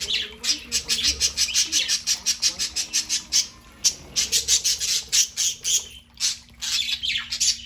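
Budgerigars chattering: fast runs of short, high chirps and squawks, several a second, with brief pauses.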